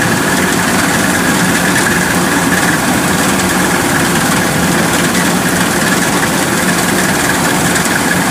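Kubota DC-108X combine harvester's diesel engine running steadily as the machine cuts through lodged, flattened rice.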